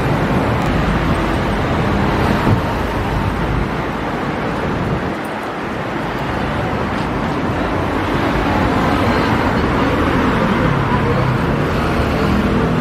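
City street ambience: a steady wash of road traffic, with passers-by talking in the latter part.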